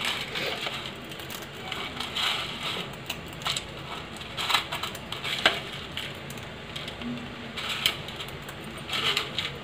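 Dry Maggi instant noodles being crumbled finely by hand on a plate: irregular dry crunching and crackling, a crunch every second or so.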